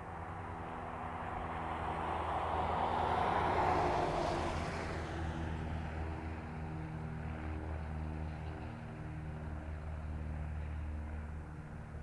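Aeroplane engines droning steadily with several held tones. A rushing noise builds over the first few seconds, peaks about four seconds in, then eases off.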